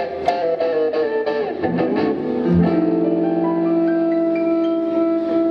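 Live trio of hollow-body electric guitar, upright double bass and upright piano playing the close of a jump-blues tune. A falling run is followed by a final chord, struck about two and a half seconds in and left to ring.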